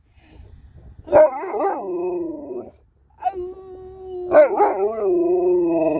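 Alaskan Malamute howling and 'talking' in three drawn-out, wavering calls: the first about a second in, the second held on a steady pitch and running straight into the third, which carries on to the end.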